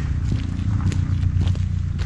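Footsteps on a paved path, a step about every half second, over a steady low rumble.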